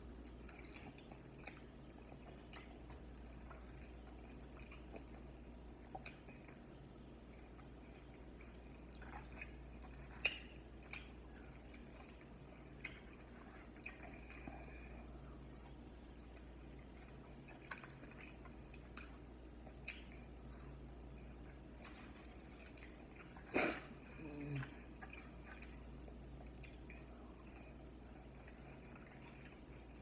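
Faint chewing and biting of hot chicken wings, with soft scattered mouth clicks. One louder sharp click comes about two-thirds of the way through.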